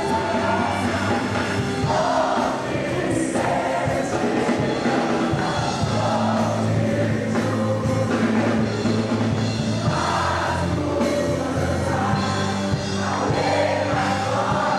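A Christian worship song: several voices singing together over instrumental backing.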